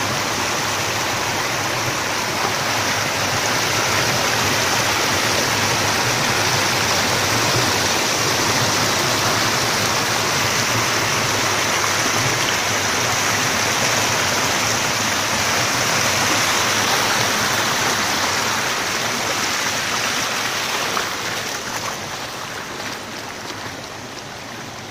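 Floodwater from an overflowing pond pouring over a low stone edge into a churning cascade, a steady loud rush of falling water. It grows fainter over the last few seconds.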